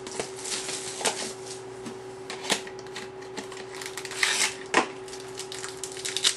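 Trading cards handled at a table, with scattered light taps and clicks, and a card pack's wrapper crinkling as it is torn open about four seconds in; the sharpest tap comes just after.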